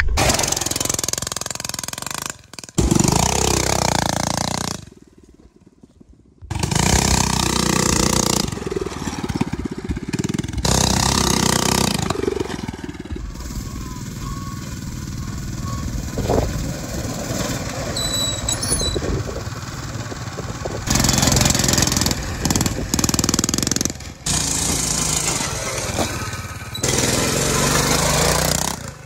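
Mini bike's small governor-removed single-cylinder four-stroke engine running while being ridden, heard in several short clips cut together. There is a brief quieter stretch about five seconds in.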